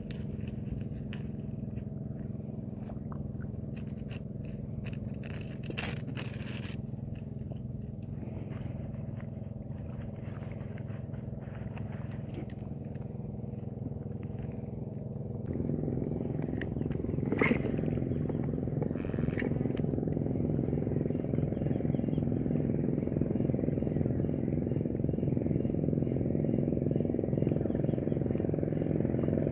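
A steady motor hum that turns louder and rougher about halfway through, with small clicks and scrapes of fishing tackle being handled.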